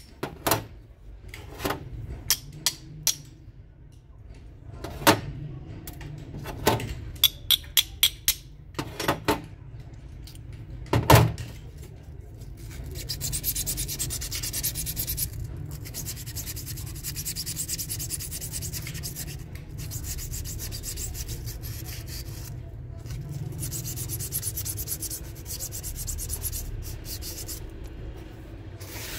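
Sharp clinks of metal tools and small injector parts handled on a concrete floor, the loudest about eleven seconds in. Then, from about thirteen seconds, steady hand rubbing and scraping of metal, with short breaks.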